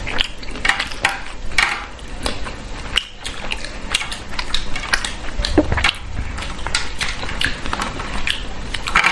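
Close-up eating sounds: chewing and smacking with many short clicks and crackles, as a giant freshwater prawn from a curry is eaten.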